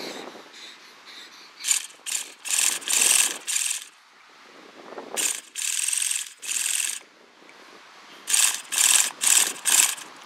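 A handheld starter spins the HPI F4.6 nitro engine of an RC truck in short whirring bursts: five, then three, then four. The engine does not catch.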